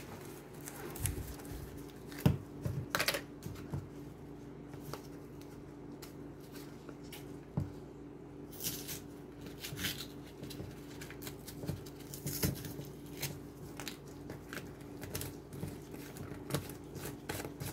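Scattered light clicks, taps and short rustles of spice containers being handled and shaken while chicken is seasoned, over a steady low hum.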